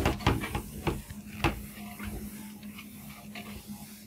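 Cloth wiping marker writing off a whiteboard: a few sharp knocks and rubs in the first second and a half, then softer, steady rubbing. A low steady hum runs underneath.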